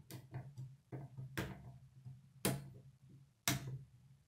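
Plastic K'nex rods and connectors clicking as they are snapped together: four sharp clicks about a second apart, with smaller clicks between them.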